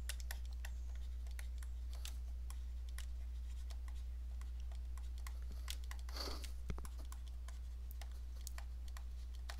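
Stylus tips tapping on a tablet as handwriting is written, a scatter of faint, irregular clicks over a steady low hum. A short, soft rush of noise comes about six seconds in.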